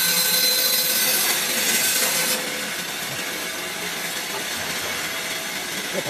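Vertical band saw cutting through the iron side frame of an air-conditioner radiator: a loud hissing cut with a steady high whine. About two seconds in, the cutting noise stops and the saw runs on more quietly.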